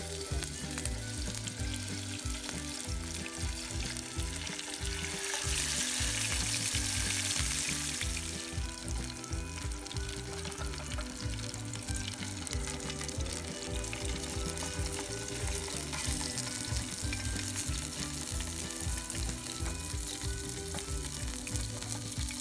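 Magpie breasts sizzling in hot oil in a pan over a small wood-burning camp stove, the sizzle louder for a few seconds about five seconds in. Background music plays underneath.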